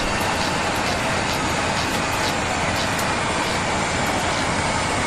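Steady cockpit noise of an Airbus A380 taxiing, with a faint whine slowly falling in pitch.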